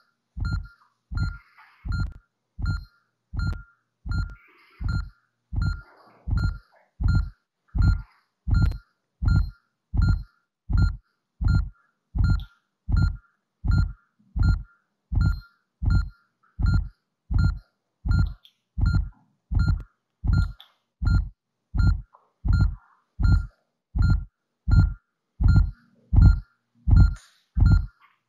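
An anatomy app's simulated heartbeat: a low thump paired with a short electronic monitor-style beep, repeating in a steady, regular rhythm of about three beats every two seconds.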